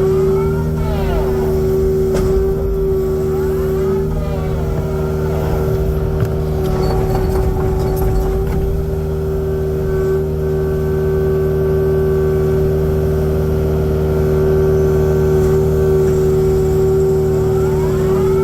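Kubota excavator's diesel engine running steadily at working speed, with a higher tone that rises and falls a few times as the machine works.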